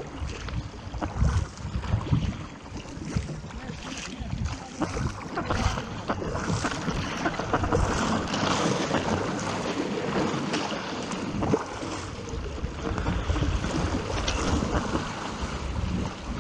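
Sea water rushing and splashing along a surfski paddled on open ocean swell, with wind buffeting the microphone in irregular low gusts.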